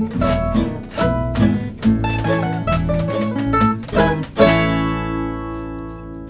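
Instrumental ending of a song on a plucked string instrument: a run of picked notes, then a final strummed chord about four seconds in that rings on and slowly fades.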